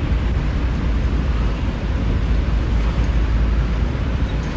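Steady low rumble of a taxi driving through city traffic, heard from inside the cabin: engine and road noise.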